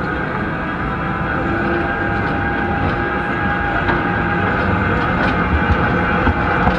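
Manchester Metrolink Bombardier M5000 tram approaching on street track, growing steadily louder, with a steady high tone and a few light clicks near the end.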